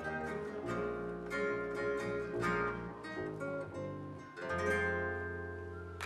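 Live band playing the closing bars of a song: picked guitar notes over bass, then a final chord struck about four and a half seconds in and left to ring and fade.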